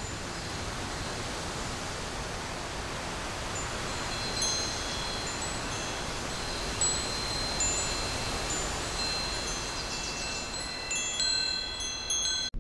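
Metal-tube wind chime ringing over a steady hiss. The tones come sparsely from about four seconds in, then several tubes are struck together near the end before the sound cuts off.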